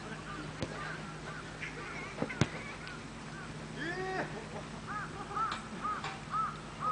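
A ball kicked sharply about two and a half seconds in, with a few lighter knocks of play, while a bird calls over and over in short rising-and-falling notes that come evenly, about two a second, in the last couple of seconds. A louder, lower call comes about four seconds in.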